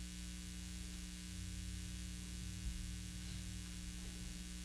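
Quiet room tone: a steady hiss and a low, steady electrical hum, with one faint soft bump a little over halfway through.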